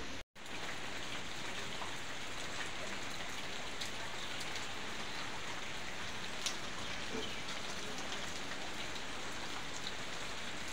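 Steady rain falling on garden plants and leaves, with scattered single drop clicks, one sharper than the rest about six and a half seconds in. The sound drops out briefly just after the start.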